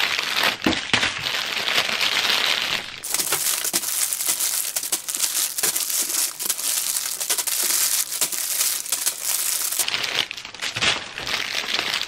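Clear plastic bags crinkling and rustling as hands dig through a box of bagged squishy toys, a continuous dense crackle of cellophane, crisper for a stretch in the middle.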